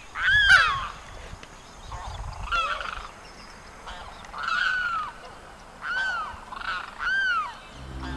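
Limpkin (carau) calling: about six loud cries, each rising and then falling in pitch, spaced one to two seconds apart, the loudest about half a second in.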